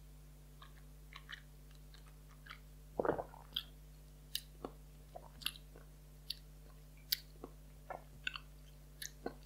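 Faint wet mouth sounds of a person working a sip of whisky around the mouth: scattered small tongue and lip clicks and smacks, with one louder smack about three seconds in.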